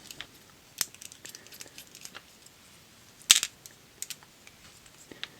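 Small metal clicks and taps from a Robur safe deposit box lock being taken apart by hand as its tailpiece comes off, with one sharper click a little over three seconds in.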